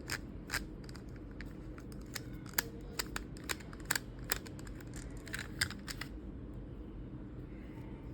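Irregular small clicks and ticks of a screw being turned out of a plastic toy pistol's housing, along with the plastic parts being handled. The clicks thin out near the end.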